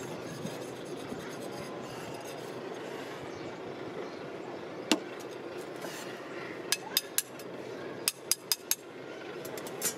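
Sharp metallic taps of a small hand tool on metal: one tap about five seconds in, then a quick run of three, then four evenly spaced taps, and one more near the end, over a steady background noise.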